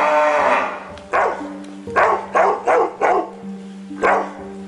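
A dog barking, about six short sharp barks in irregular succession, after the tail end of a cow's moo dies away in the first second. Soft background music with held tones plays underneath.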